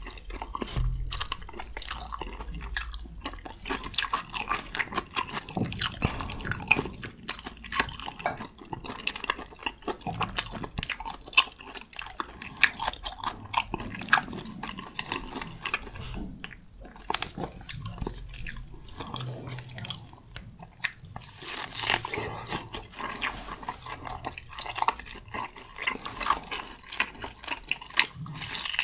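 Close-miked wet chewing and mouth smacking of a person eating a mouthful of spicy stir-fried Buldak noodles: a steady run of small sticky clicks and squelches.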